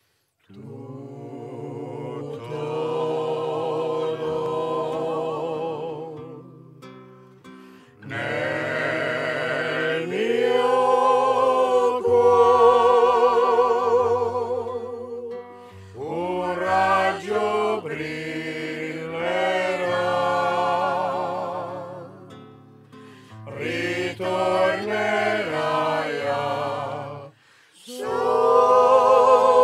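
A Tabarchino folk group singing a serenade in several-voice harmony, starting about half a second in. The voices sing with vibrato in long phrases broken by short pauses.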